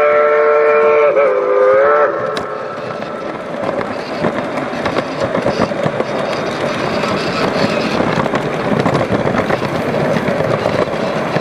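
Whistle of a large-scale model steam locomotive sounding a chord of several tones for about the first two seconds, dipping in pitch just before it cuts off. Then the model train rolls past with its wheels clicking over the rail joints and a steady tone beneath the running noise.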